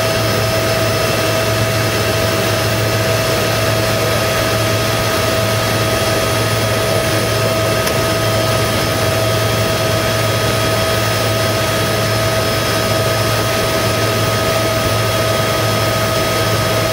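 Boat motor running at a steady speed, heard from aboard: an even drone with a constant low hum and a steady higher whine, no change in pitch or level.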